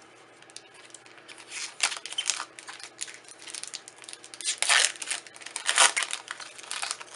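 A foil Magic: The Gathering booster pack wrapper being torn open and crinkled in the hands: a string of crackling rips and crinkles that starts about a second in and is loudest around five to six seconds in.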